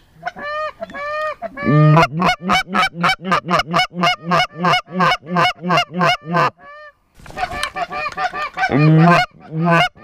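Goose call blown hard in a rapid run of honks and clucks, about three to four notes a second, each note breaking from low to high; a short pause about seven seconds in, then more calling. It is calling to a flock of Canada geese to bring them in.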